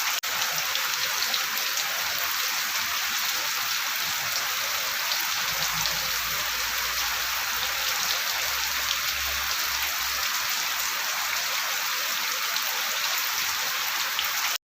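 Steady rain falling, with many separate drops ticking through it. It cuts off suddenly just before the end.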